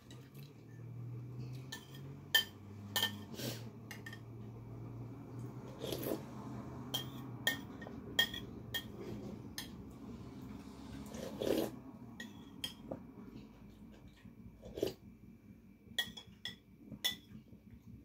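Dishes and cutlery clinking: a dozen or so sharp, separate clinks spread irregularly, over a faint low hum that stops about seven seconds in.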